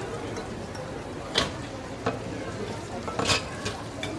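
Metal kitchen utensils clinking against each other and a steel sink, a few sharp knocks with a brief cluster near the end, over steady background noise.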